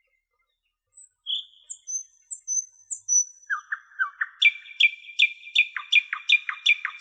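Songbirds singing: a few scattered high chirps and short whistles, then a fast run of repeated down-slurred notes at about three a second from around four and a half seconds in.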